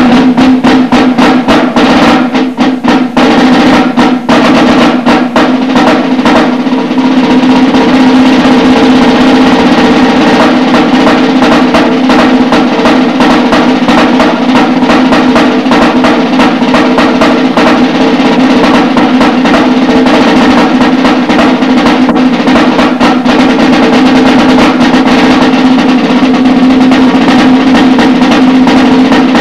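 Solo snare drum played loudly with sticks: separate sharp strokes for the first several seconds, then fast, unbroken rolls and rudiments.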